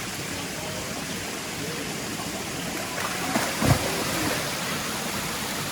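Steady rushing water of a small waterfall and stream, with a short louder noise about three and a half seconds in.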